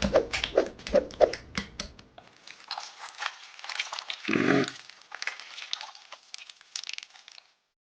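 Slime being squeezed and stretched by hand, with a run of sharp wet clicks and pops, then a thinner crackling, plus one short lower squelch about halfway through.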